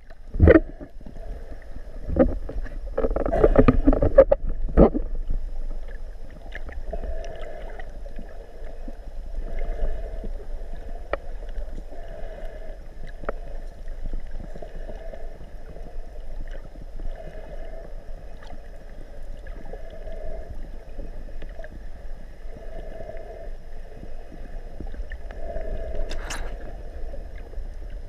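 Muffled underwater sound picked up by a GoPro in its waterproof housing. There are splashes and knocks in the first few seconds, then a low steady wash with soft pulses every second or two and scattered sharp clicks.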